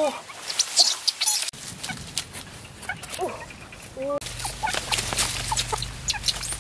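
Chicken clucking a few short times, with the crackle and rustle of grass and bamboo leaves being pushed aside.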